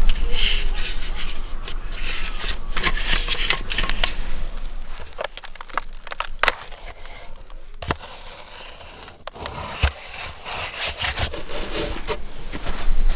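Irregular rubbing and scraping handling sounds, with scattered sharp clicks and knocks and a quieter stretch in the middle.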